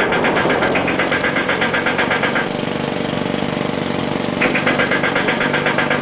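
A rapid, even mechanical pulsing from a motor, such as an engine or a jackhammer, over a steady drone. The pulsing stops about two and a half seconds in and starts again about two seconds later.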